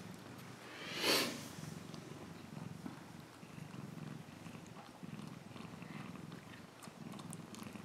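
Maine coon mother cat purring steadily, in low rhythmic waves, while her newborn kittens nurse. A short, loud, rising noise cuts across the purring about a second in.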